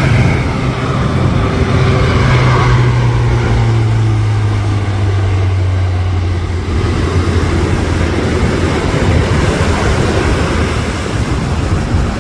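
Lockheed C-130J Super Hercules's four turboprop engines and six-blade propellers droning in a low hum that drops steadily in pitch over the first several seconds as the aircraft passes, then holds.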